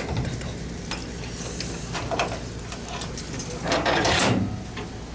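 Keys jangling and clicking in the lock of a metal gas cabinet door as it is unlocked and opened, with a louder scraping noise lasting under a second near the end. A steady low hum runs underneath.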